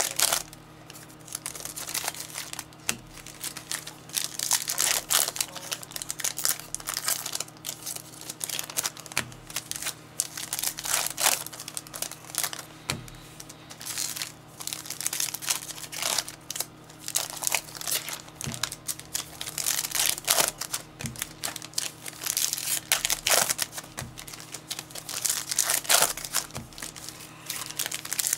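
Plastic wrapping on sports trading card packs and boxes crinkling and tearing in irregular bursts as it is opened by hand.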